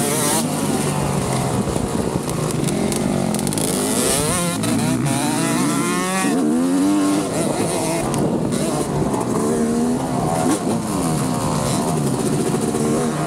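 Several motocross dirt bike engines revving, their pitch rising and falling again and again and overlapping one another.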